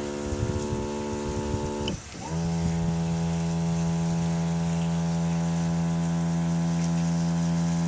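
Outboard motor's electric power trim and tilt pump running with a steady whine. It stops about two seconds in, then starts again at a different, lower pitch and runs steadily, showing the trim and tilt works.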